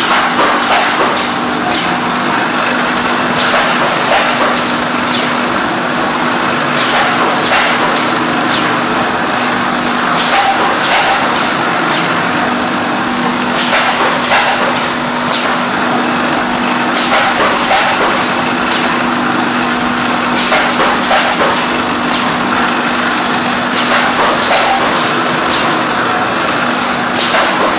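Biscuit feeder and press of a chocolate depositor line running: a steady machine hum under constant noise, with frequent sharp clicks and knocks of the mechanism at an uneven pace.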